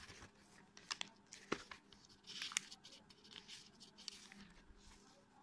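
Faint handling of a sheet of sketch paper: soft rustles and a few light clicks, about a second in, again half a second later, and once more near the middle.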